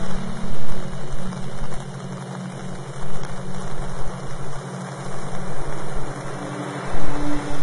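Low, steady droning hum that swells and dips in loudness.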